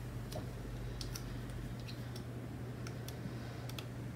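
Scattered light clicks and ticks, about nine in all, from handling a pair of craft scissors and a paper sticker at a desk, over a steady low hum.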